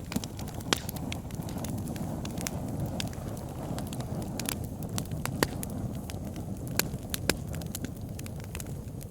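Wood fire burning in a fireplace: a steady low roar of flames with frequent sharp crackles and pops, a few louder pops standing out.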